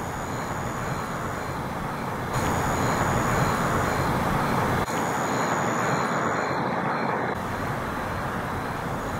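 Steady outdoor background noise: a hiss over a low rumble like distant road traffic, which steps abruptly louder or quieter a few times.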